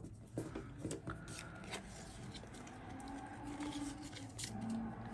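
Pokémon trading cards being handled on a wooden table: a faint rustle of cards sliding and stacking, with a few light clicks and taps.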